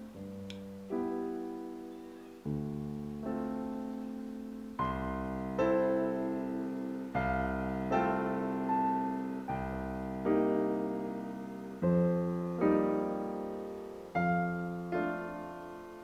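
Background piano music: slow chords struck roughly once a second, each ringing on and fading before the next.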